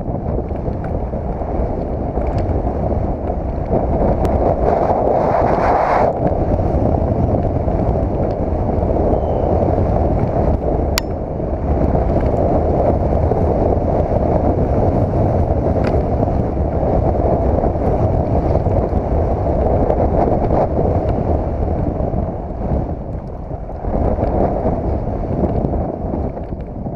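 Wind buffeting an action camera's microphone, with a downhill mountain bike's tyres rumbling over a dirt track at speed. A few sharp clicks and rattles from the bike come through.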